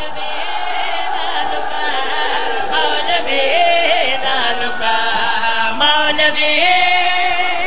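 Men's voices in devotional chanting, singing long, wavering held notes.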